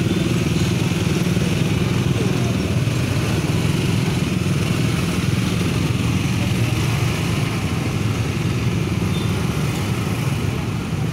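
Motor scooter engines running close by in slow, crowded street traffic: a steady rumble with no breaks.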